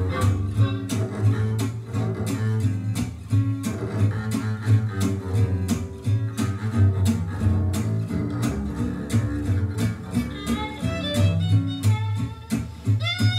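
Recorded music with a steady beat and heavy bass, played back from cassette on a Nakamichi DR-2 tape deck. A higher melody comes in during the last few seconds.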